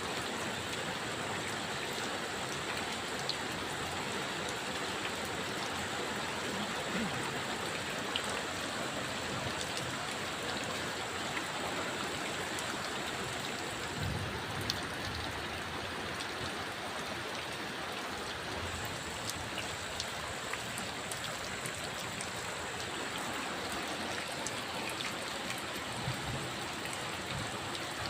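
Steady heavy rain falling, with scattered sharper drop hits, and a faint thin high whine that cuts out for a few seconds midway.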